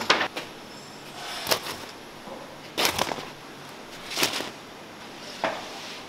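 A series of separate sharp knocks and clatters, about one every second or so, over a steady background hiss.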